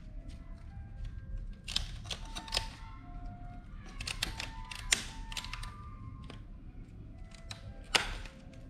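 Sharp clicks of miniature circuit breaker toggles in a household distribution board being switched on one after another, in several clusters with the loudest near the end, as the healthy circuits are restored and the shorted one is left off.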